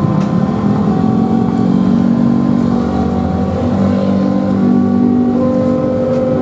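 Motor vehicle engines running steadily, several held engine tones overlapping and shifting in pitch.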